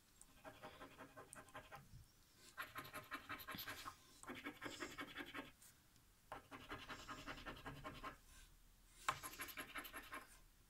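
A coin scratching the coating off a scratch-off lottery ticket in five short bouts of rapid strokes, with brief pauses between them.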